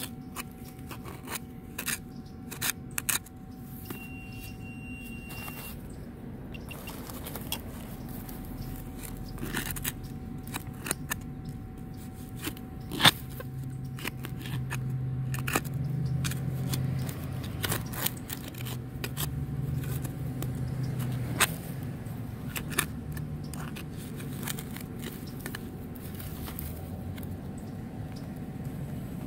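Hand digger scraping and stabbing into grassy soil, with scattered sharp clicks and crunches. A low rumble swells and fades through the middle.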